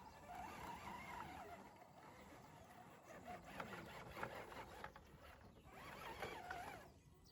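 Faint, distant voices of several people talking, with a few light knocks in the middle.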